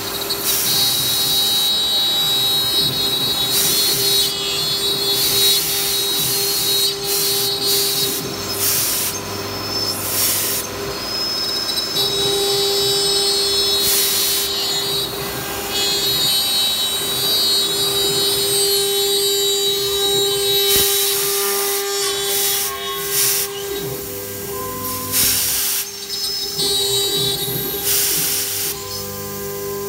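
STM1325 CNC router's spindle running with a steady whine while its bit cuts into an MDF sheet. Bursts of cutting noise come and go every second or two as the bit moves through the board.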